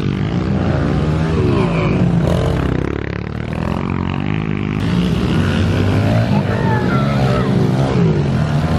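Several pit bike engines running and revving at once, their pitch rising and falling as the riders work the throttle.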